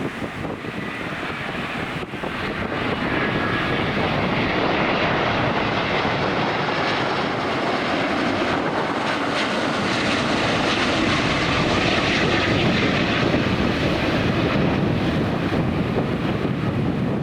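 Landing jet airliner passing on final approach: a loud rushing engine noise that builds over the first few seconds, holds, and begins to ease near the end.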